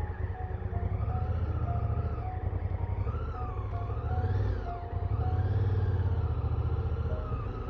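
Adventure motorcycle engine running with a low, pulsing rumble as the bike is ridden slowly.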